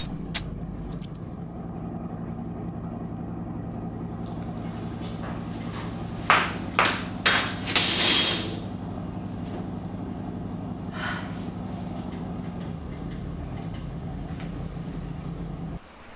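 A steady low hum with a quick run of four or five knocks or bangs about six to eight seconds in and a single fainter one a few seconds later; the hum cuts off suddenly near the end.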